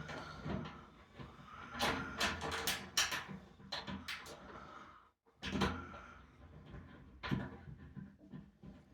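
Thin sheet-metal barbecue parts knocking and clattering as they are handled and fitted together, with a quick run of sharp clicks and taps a couple of seconds in.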